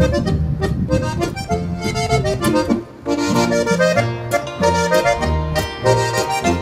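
Background music led by an accordion: a folk-style tune over a steady bass beat, breaking off briefly just before three seconds in.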